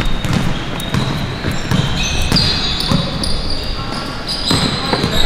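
A ball bouncing repeatedly on a hard indoor court floor, thudding about twice a second, with short high sneaker squeaks on the court, more of them from about two seconds in.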